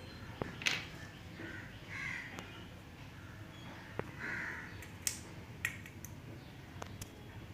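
Light clicks and taps of small parts being handled and set down on a concrete floor, with a bird cawing twice in the background.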